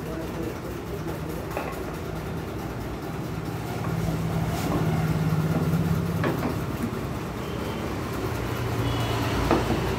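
An engine running steadily, getting louder around four seconds in and settling to a lower pitch near the end, with a few light metal clicks and taps as a motorcycle's right-side clutch cover is fitted onto the crankcase.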